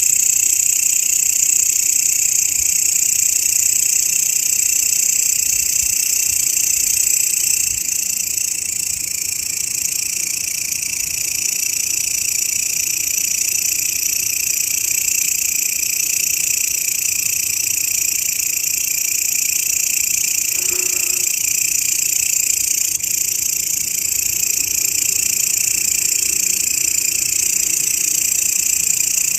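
Grasshoppers stridulating in a continuous, high-pitched buzz that does not stop or change.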